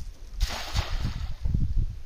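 A thrown cast net landing flat on pond water: a brief splashing hiss about half a second in, as the weighted rim and mesh hit the surface. Low wind buffeting on the microphone runs underneath.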